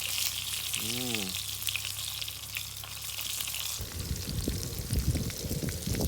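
Food frying in a pan over a campfire, sizzling and crackling. About four seconds in the sizzle fades and a low rumbling noise takes over.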